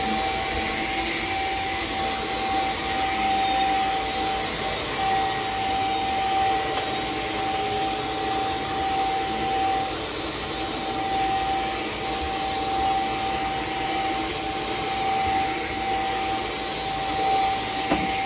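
Stick vacuum running steadily as its powered floor head is pushed over rug and carpet. A constant motor whine sits over the rushing of air and the brush.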